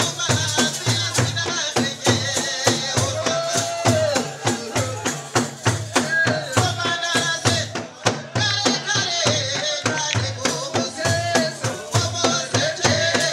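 Traditional Rwandan drum-and-song music: a row of large wooden ingoma drums beating a fast, steady rhythm under group singing, with a bright high shimmer that fades out around the middle and returns shortly after.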